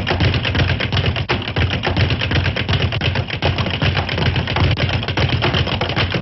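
Rapid flurry of cartoon punch sound effects, a dense run of quick sharp blows, many per second, that never lets up: one boxer pounding the other.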